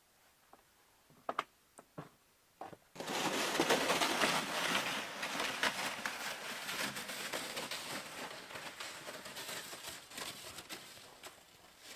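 A few light knocks, then from about three seconds in boots crunching through snow and a towed sled hissing over it, loud at first and fading as they move away.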